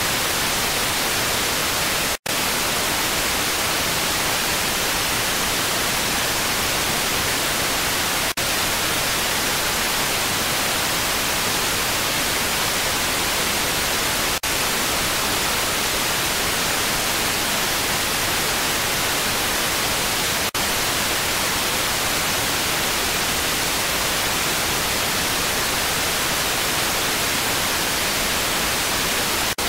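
Steady loud static hiss, even from low to high pitch, with no game sound audible through it. It cuts out completely for an instant about two seconds in, and dips faintly about every six seconds after that.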